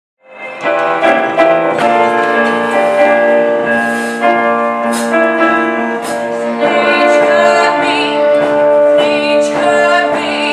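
Instrumental introduction to a musical theatre song, with sustained keyboard chords and melody, starting a moment in.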